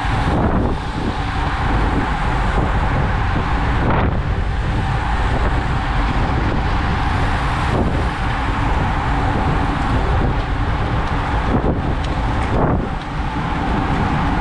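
Wind buffeting the microphone of an action camera on a racing bicycle moving at about 35 km/h in a bunch of riders, a steady rushing noise with tyre and road noise underneath. A few brief knocks break through it.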